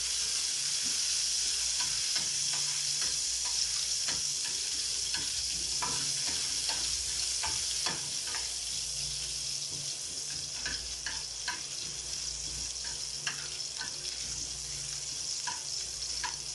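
Sliced ginger sizzling in hot oil in a frying pan, a steady hiss, with scattered clicks and scrapes of a spoon stirring it in the pan.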